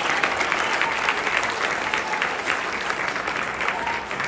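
Audience applause: many people clapping steadily, easing off slightly near the end.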